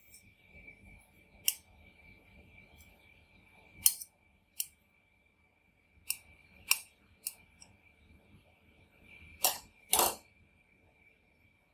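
Steel ice-cream spatulas scraping frozen rolled ice cream and clacking on the steel cold-plate pan: about eight sharp, irregular clacks, a pair of them close together near the end, over soft scraping and a steady high whine.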